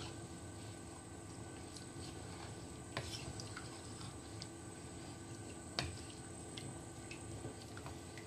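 Pork pieces in a dark vinegar sauce simmering in an aluminium pot and being stirred with a wooden spatula: a steady bubbling and squelching, with scattered light knocks of the spatula against the pot, the sharpest about three and six seconds in.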